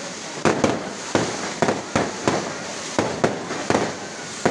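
Fireworks display: a rapid run of aerial shell bursts, roughly two to three sharp bangs a second, over a continuous crackling hiss.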